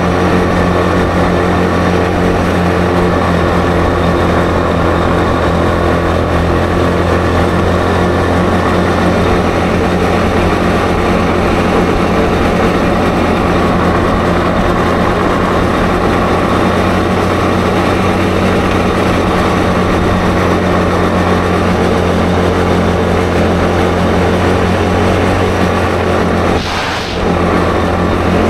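ATV engine running steadily at a constant speed while riding, with a low even drone. There is one short knock and a brief dip in the sound near the end.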